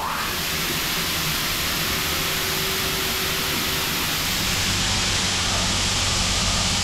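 Heller CP 6000 horizontal machining centre running during a roughing job on a steel block: a steady loud hiss over a low machine hum.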